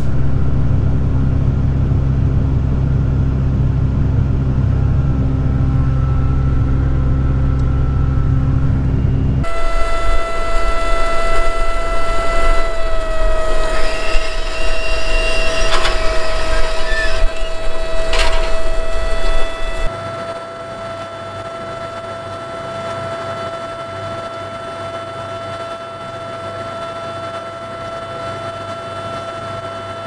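A tractor engine runs with a deep steady drone, heard from inside the cab. After a cut about ten seconds in, a tractor pulling a Case IH corn planter works the field, with a steady high whine over the engine and a few clicks. From about twenty seconds in the whine carries on more quietly with less engine.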